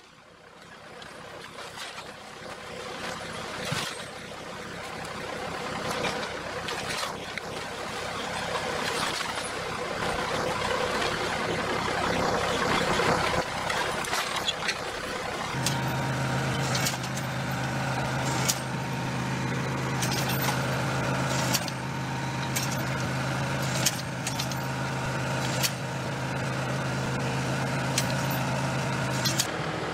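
Tractor engine running with a tractor-mounted disc hoe cultivating soil, with a rushing noise at first. About halfway through, a steady low engine hum comes to the fore, with scattered sharp clicks and knocks from the implement working the ground.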